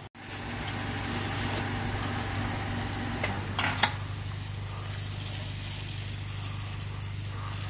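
A motor running steadily with a low, even hum. Two sharp clicks come a little past three seconds in and just before four seconds in; the second is the loudest sound here.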